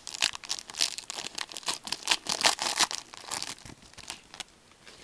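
Foil wrapper of a Panini Certified hockey card pack crinkling and tearing as it is ripped open, a quick run of crackles that thins out near the end.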